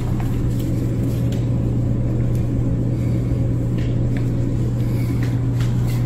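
A steady low hum, with a few faint taps over it.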